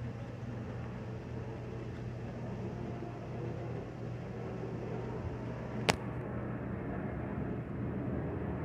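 Steady outdoor background hum with a constant low tone, and one sharp click about six seconds in.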